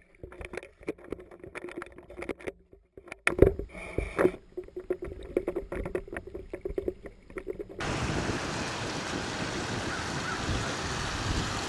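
Sound picked up underwater by a submerged camera: muffled, irregular knocks and clicks over a faint steady hum, with a couple of louder thumps a few seconds in. About eight seconds in it switches abruptly to a steady, even hiss above the water.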